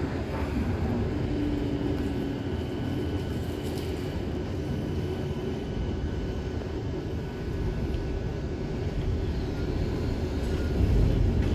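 Tram running, heard from inside the car: a steady rumble of the wheels on the rails, with a faint high whine over it. The rumble grows louder near the end.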